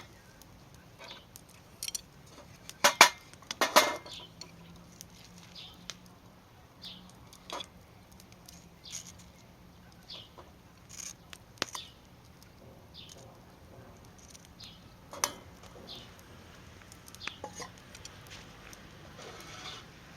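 Metal utensils clicking and knocking against an aluminium skillet in a run of scattered light clicks, with two louder knocks about three and four seconds in.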